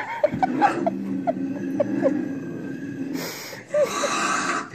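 Sound from a TV playing: a steady low drone with a string of short falling squeaks in the first two seconds, then a rushing noise for about a second and a half near the end.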